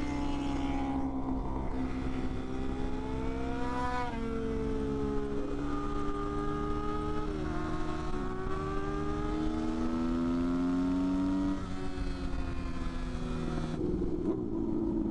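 Motorcycle engine under way, pulling through the gears: its pitch climbs, then drops at shifts about four, seven and a half and eleven and a half seconds in, with a steady rush of wind and road noise underneath.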